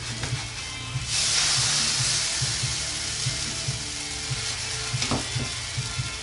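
Pancake sizzling in a hot buttered frying pan, with a sudden loud surge of sizzle about a second in as it is flipped onto its uncooked side. The sizzle then slowly dies down.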